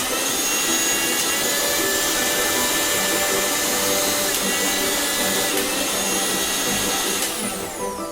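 Maharaja Whiteline Livo Classic 500-watt mixer grinder running at full speed, a loud, steady high motor whine with hiss. Near the end it is switched off and the whine falls away as the motor spins down.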